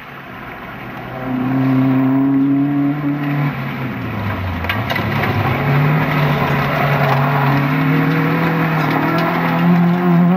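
Vauxhall Nova rally car's engine at high revs on a gravel stage, getting louder as it approaches. The pitch drops sharply around the middle as the driver lifts or changes gear, then climbs steadily under full acceleration, over tyres spraying gravel with a few stone clicks.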